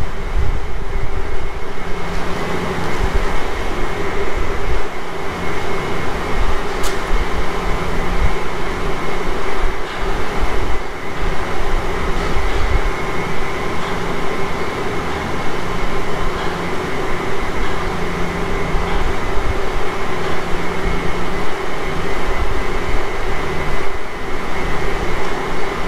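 Steady mechanical drone of machinery, a low rumble with a few constant hum tones over it.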